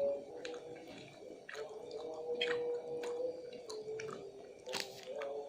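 A person chewing a mouthful of instant fried noodles close to the microphone, with irregular wet mouth clicks and smacks and a sharper one near the end.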